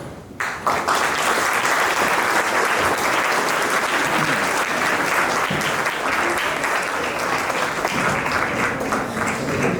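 Audience applauding: steady clapping that starts about half a second in and eases slightly near the end.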